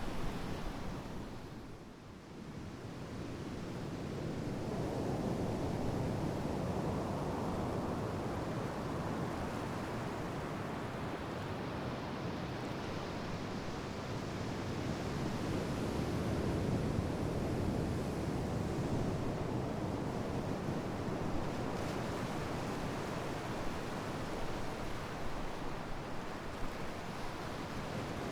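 Ocean surf: waves washing onto a shore in a steady rush that fades briefly about two seconds in and then swells back.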